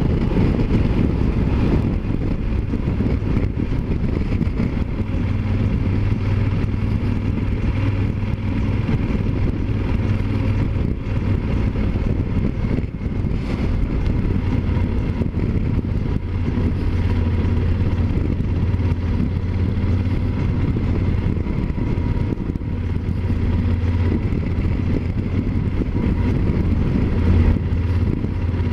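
Yamaha Super Ténéré 1200's parallel-twin engine running at a steady cruise, with wind and road noise at speed. Its low drone grows stronger about five seconds in and then holds steady.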